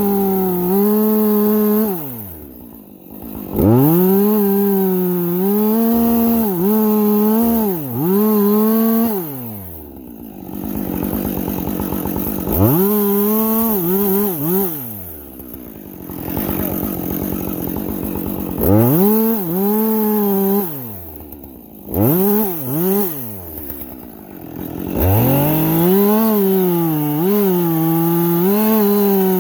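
Husqvarna two-stroke chainsaw cutting into an acacia trunk. It is revved to full throttle about six times, its pitch dipping and wavering as the chain bites into the wood, and it drops back to idle between cuts.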